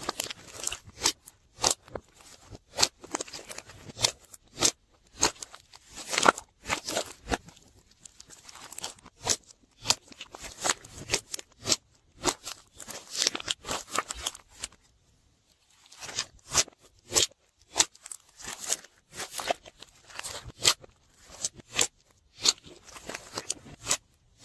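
Slime being squished and worked, giving a dense run of sticky crackling pops and clicks, with a brief pause about two-thirds in.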